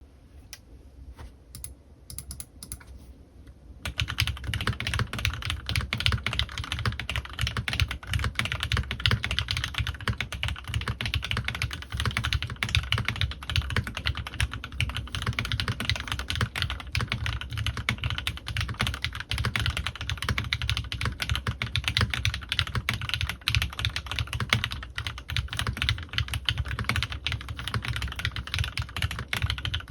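Typing on a CannonKeys Rekt1800 custom mechanical keyboard with lubed Gateron Ink Black V2 linear switches and PBT keycaps. A few quiet, scattered keystrokes come first, then fast continuous typing from about four seconds in.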